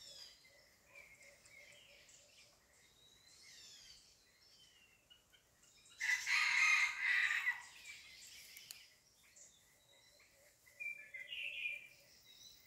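A rooster crows once, loud and short, about six seconds in. Small birds chirp and twitter around it throughout, with another brief, fainter call near the end.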